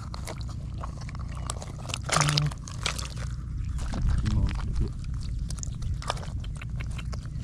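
Dry soil and mud crunching and scraping as it is dug and broken apart, with many irregular small clicks over a low rumble. A short voice sound comes about two seconds in, and another a little after four seconds.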